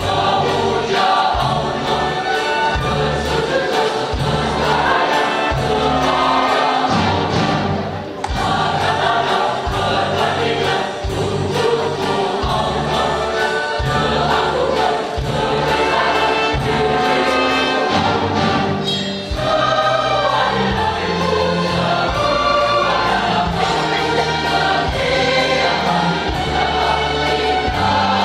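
Mixed choir of men's and women's voices singing, accompanied by an orchestra, with a regular low bass pulse beneath the voices.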